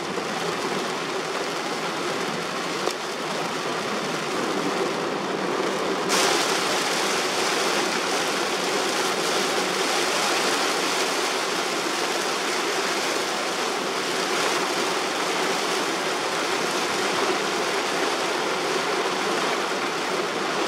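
Torrential rain beating on a car and tyres hissing through flooded road spray, heard from inside the moving car as a steady rushing noise. About six seconds in it changes abruptly to a brighter, hissier rush.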